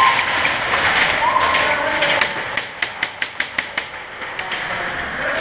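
Airsoft guns firing: scattered sharp snaps, then a quick string of about eight, some five a second, about two seconds in.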